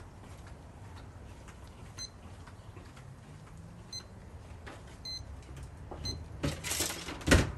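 A few short, high electronic beeps from a digital kitchen timer, a second or so apart. Near the end come rustling and a sharp knock, the loudest sound.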